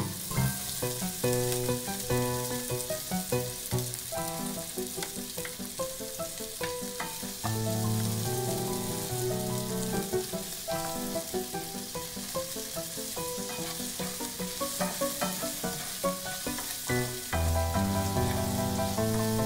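Chopped onions sizzling in oil in a frying pan, stirred now and then with a spatula, under background music with sustained notes.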